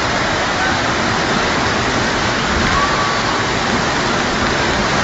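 Floodwater rushing in a steady, loud roar.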